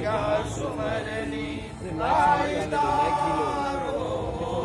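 Chanting of Hindu ritual mantras, with a rising glide about two seconds in and then one long held note.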